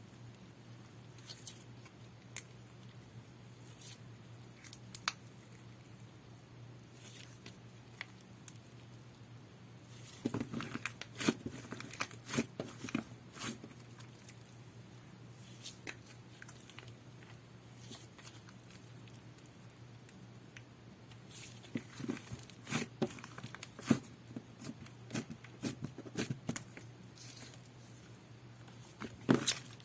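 Hands playing with jelly-textured slime: sticky squishing with small pops and clicks. It comes in busy spells about a third of the way in and again past the two-thirds mark, with sparse single clicks between them.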